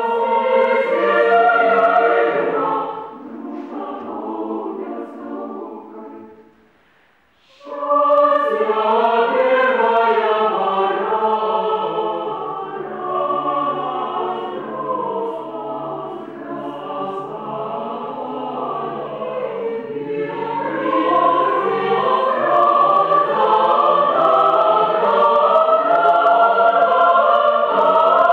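Women's chamber choir singing a cappella in several parts. The singing softens after a couple of seconds, stops briefly about seven seconds in, then comes back full and swells louder in the last third.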